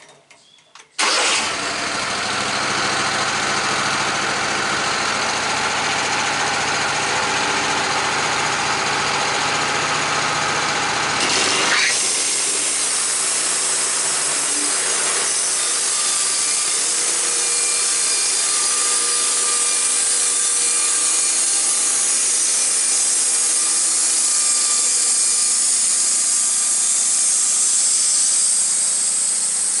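A gas-engined sawmill starting up about a second in and running. About twelve seconds in the sound turns brighter and higher as the mill goes to work cutting flitches.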